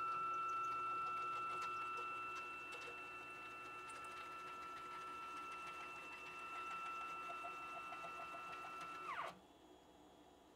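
K2CNC router's Y-axis stepper motor and 10 TPI ball screw driving the gantry during a jog move: a steady whine with a grinding, rattling noise that rises in pitch as the move starts, then falls away and stops about nine seconds in. The owner suspects bad ball screw bearings.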